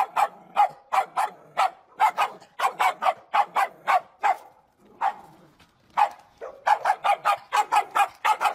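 A small dog barking in quick, sharp yaps, about three a second, stopping for a second or so past the middle, then barking faster again.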